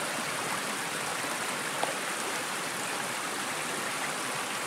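Small mountain stream running over rocks: a steady, even rush of water.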